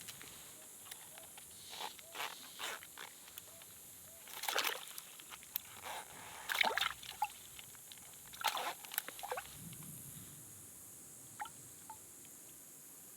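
Water sloshing and splashing in short, irregular bursts, the loudest about halfway through, over a faint steady high hiss.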